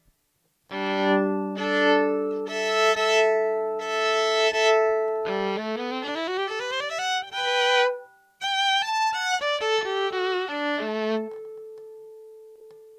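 Yamaha SV-150 electric violin being bowed: sustained low chords first, then a quick rising scale. After a brief break comes another fast passage that ends on a held note, which fades away slowly.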